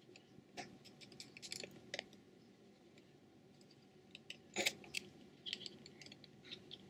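Small screwdriver taking out the tiny screws of a Samsung Galaxy S3's plastic midframe: faint, scattered clicks and scrapes of the bit on the screw heads and plastic, with a sharper click about two-thirds of the way in.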